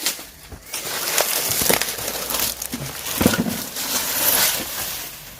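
Rustling and crinkling of packaging being handled, with a few knocks as items are moved, the loudest about three seconds in.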